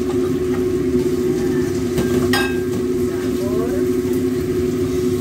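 A steady mechanical hum over food frying in a wok on a gas stove, with one sharp clank of the spatula against the wok a little over two seconds in.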